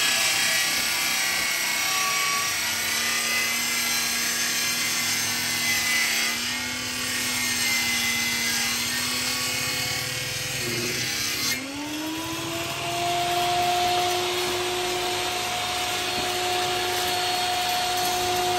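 Electric power saw cutting through a wooden cabinet sheet, with a steady motor hum under the cutting noise. About eleven seconds in, the hum dips and then glides up to a steady higher whine as the saw comes free of the cut.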